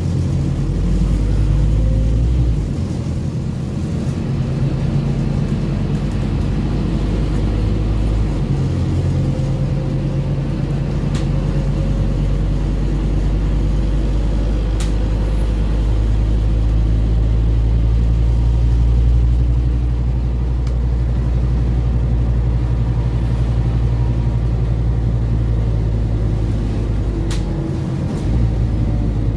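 Scania OmniCity N230UD bus with its five-cylinder 9-litre diesel engine under way, heard from inside the passenger saloon. The engine note shifts several times as the automatic gearbox changes gear. A few faint ticks and rattles from the bodywork come through.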